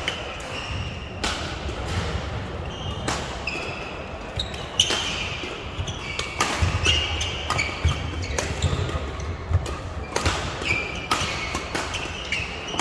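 Badminton doubles rally: rackets striking the shuttlecock in sharp cracks roughly once a second, with short high squeaks of shoes on the court floor between the hits.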